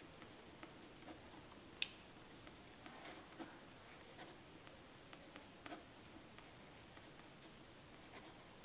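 Faint scratching and small ticks of a pen writing words on paper, with one sharper click about two seconds in.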